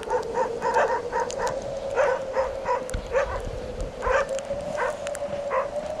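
Animal calls: short yelps repeated a few times a second, over a steady whistle-like tone that slowly rises in pitch.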